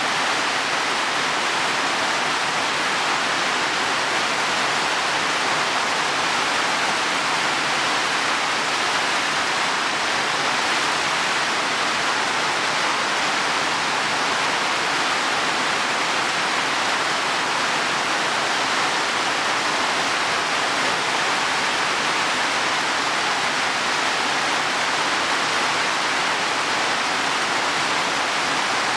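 Heavy rain falling steadily on leaves and soil, an even unbroken hiss.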